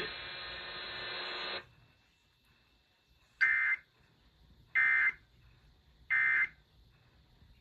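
Emergency Alert System end-of-message data bursts: three short, identical digital warbles about a second and a half apart, the EOM codes that close a Required Monthly Test. Before them a steady hum cuts off about a second and a half in.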